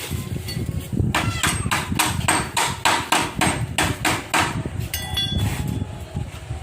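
Hammer blows during gate repair: a rapid, even run of strikes, about four a second, for over three seconds, each with a brief ring, followed by a short ringing clang.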